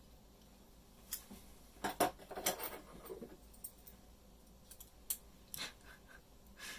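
Irregular small metallic clicks and scrapes of hand tools working on a padlock.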